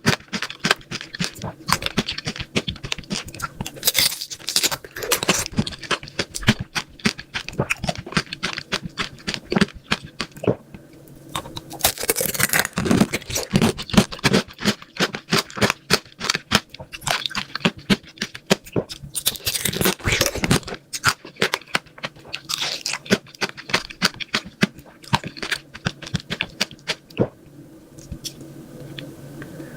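Crunchy food being bitten and chewed close to the microphone, with dense crackling crunches. The crunching dies away near the end, leaving a faint steady hum.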